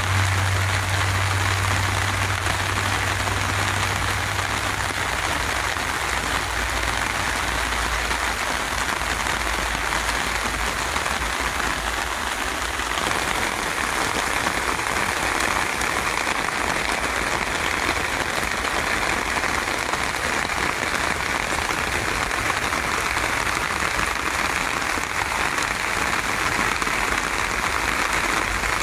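Steady rain falling on garden plants, an even hiss. A low hum fades out about four seconds in.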